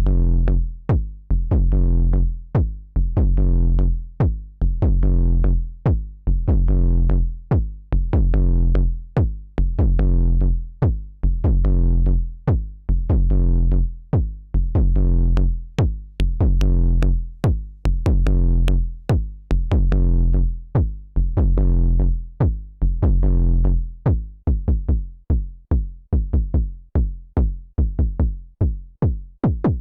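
KORG Volca Kick analog synthesizer playing a sequenced pattern of punchy kicks with long, deep bass tails. About 24 seconds in, the hits turn short and come faster.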